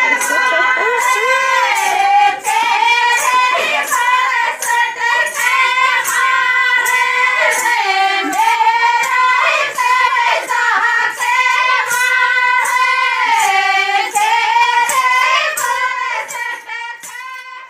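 Rajasthani folk song: a high-pitched voice sings a melody over a steady held tone and a regular percussion beat. The song fades out near the end.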